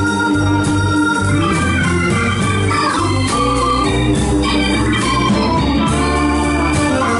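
Live blues band playing: a stage keyboard on an organ sound holds sustained chords over electric bass and drums, steady and loud.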